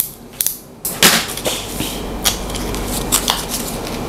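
Small plastic bait packet being torn open and handled, a few crisp clicks of the wrapper, then from about a second in a sharp rip followed by continuous crinkling and rustling of the packaging.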